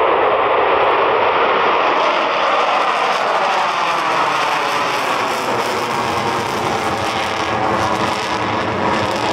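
Four Boeing F/A-18 Super Hornets with GE F414 turbofan engines flying low overhead in diamond formation: a loud, steady jet roar whose tone slowly falls in pitch.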